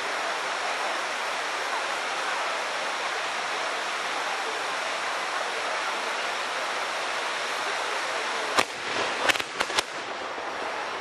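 Hand-held tezutsu bamboo-tube fireworks spraying sparks with a steady hiss. A little over eight seconds in come four sharp bangs in about a second: the tubes' bottoms blowing out, the bang that ends a tezutsu.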